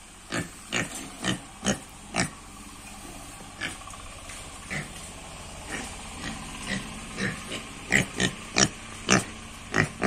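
Penned pigs grunting in short, sharp grunts, a quick run of them at the start, a few scattered in the middle and a louder cluster near the end.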